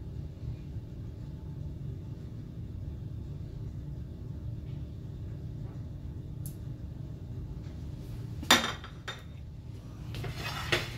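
Tableware clattering sharply on the kitchen counter about 8.5 s in, a lighter knock just after, then rustling and a clink near the end as the plate is handled, over a steady low kitchen hum.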